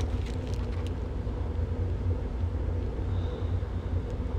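Steady low background hum, with a few faint clicks in the first second.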